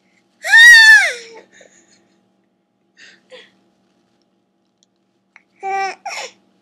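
An almost six-month-old baby's loud, high-pitched vocal squeal about half a second in, lasting about a second and dropping in pitch at its end, then two shorter baby vocal sounds near the end.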